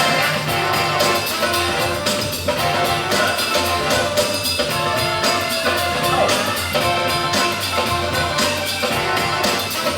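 Funk music with drums and horns playing at a steady beat.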